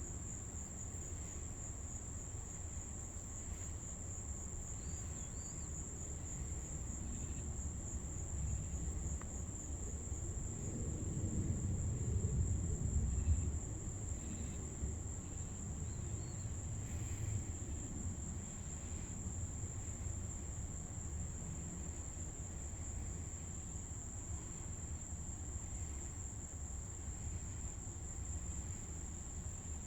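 Steady high-pitched chorus of night insects, crickets or katydids. About ten seconds in, a low rumble swells for a few seconds and fades: distant thunder.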